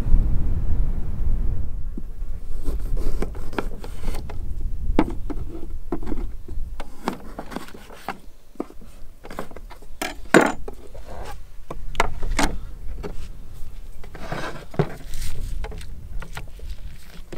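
Kitchen knife cutting through an orange and a lime on a plastic cutting board: a series of irregular knocks and scrapes as the blade meets the board. Wind rumbles on the microphone for the first couple of seconds.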